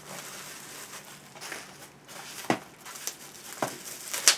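A bubble-wrap mailer crinkling as it is handled and pulled open, with three sharp crackles in the second half.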